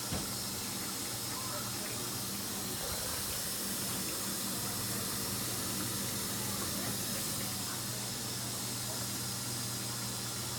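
GE front-load washer filling with water through its inlet, a steady hiss of running water over a steady low hum.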